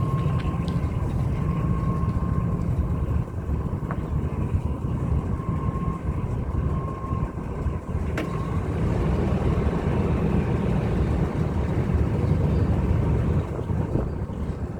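2001 Ford F-150 running, a steady low rumble with a faint high whine that comes and goes several times.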